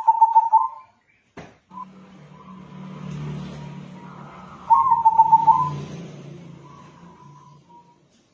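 Local cross-bred zebra dove (perkutut lokal crossing) cooing: a rapid run of pulsed coos at the start and again about five seconds in. A sharp click comes just after the first phrase, and a low steady hum sits under the song between the phrases.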